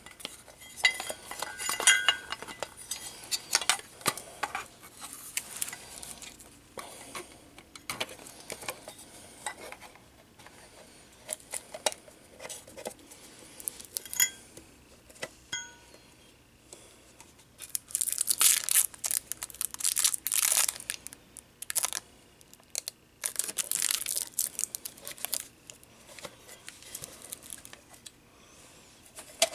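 Plastic dome camera housing and mounting bracket being handled and fitted together: scattered clicks, taps and light knocks, with two longer stretches of scraping rustle past the middle.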